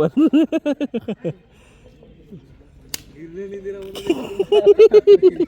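A man's voice making rapid, repeated hooting calls in two runs, one at the start and one near the end, with a single sharp click about three seconds in.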